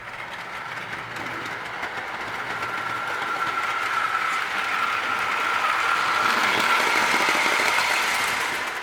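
Lionel toy train, a small 0-4-0 locomotive hauling skeleton log cars with die-cast trucks, running on the track with a steady motor whine and wheel rumble. It gets steadily louder as it comes closer and stops abruptly at the very end.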